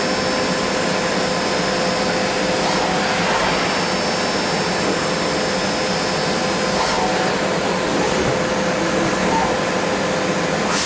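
CNC machining centre running, its spindle and cutter milling a small metal part: a steady whir with a high whine that stops about seven seconds in.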